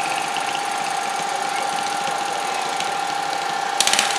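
Garden tractor engine idling steadily, with a constant high whine over the running. A short, harsh burst of noise comes near the end.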